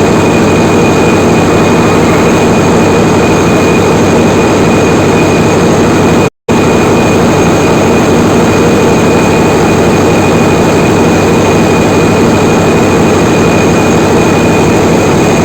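Loud, steady drone of large Wärtsilä 18V50SG gas-engine generating machinery, with a steady high whine over it. It cuts out completely for a split second about six seconds in.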